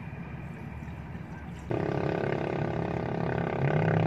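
Antifreeze coolant glugging out of a plastic jug into a car's coolant expansion tank. About two seconds in, a louder steady drone with several held tones cuts in abruptly and takes over.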